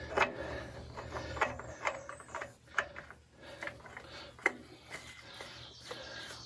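New spin-on oil filter being screwed by hand onto the engine of a Generac Guardian standby generator: irregular small clicks and scrapes as the canister turns and the hand grips and regrips it.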